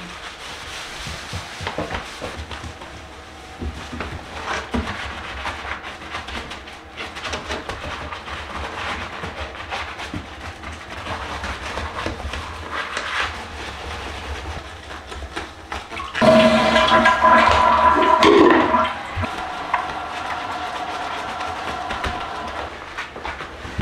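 Rubber-gloved hands wiping and scrubbing a toilet with a cloth. About two-thirds of the way through comes a toilet flush, the loudest sound, lasting about three seconds, followed by a fainter steady tone for a few seconds as it dies down.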